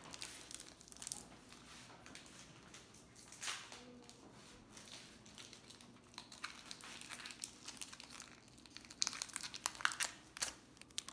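Foil booster pack wrappers and a cardboard collection box being handled, crinkling and rustling in scattered short bursts. The crinkling is busiest about nine to ten seconds in.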